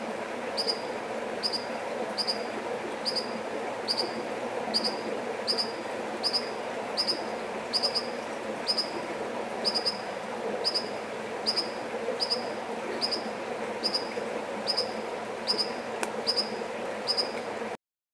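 American dipper giving a short, sharp, high call over and over, about every 0.8 seconds, over a steady background of running water.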